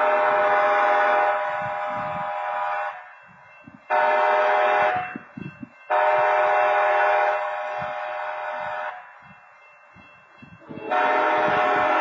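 Locomotive air horn sounding a chord of several notes in separate blasts: a long blast, a short one, another long one, and a fourth starting near the end. This is the long-long-short-long grade-crossing warning.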